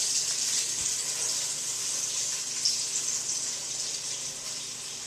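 Butter melting and sizzling in a hot pot of cooked pork sausage and its drippings: a steady, high-pitched sizzle that slowly fades.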